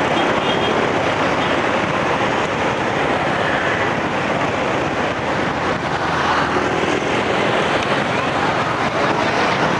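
Wind rushing steadily over the microphone of a moving motorbike taxi, mixed with the noise of the surrounding motorbike and car traffic.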